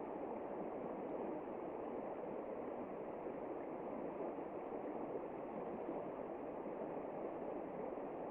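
Steady rushing water, an even unbroken noise without distinct splashes or drops.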